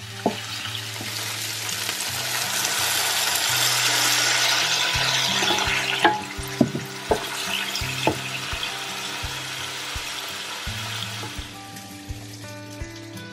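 Tofu cubes and sliced onion sizzling in oil in a non-stick frying pan while being stirred with a wooden spatula. The sizzle swells to its loudest about four seconds in, then eases, with a few sharp clicks around six to eight seconds in.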